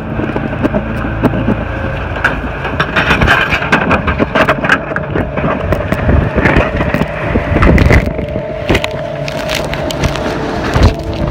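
Ford Expedition SUV driving over rough ground, its engine running under constant knocking, rattling and crunching from the wheels and body.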